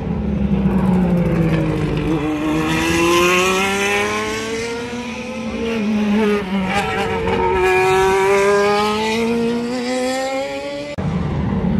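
Group C sports-prototype race cars accelerating hard past, one after another. The engine note climbs in pitch with a dip at each gear change.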